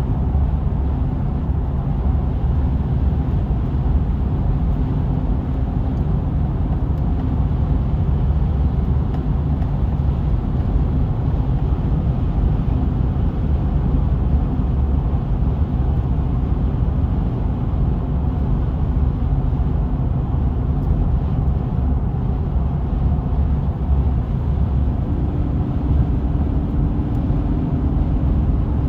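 Steady low road and engine noise of a car driving.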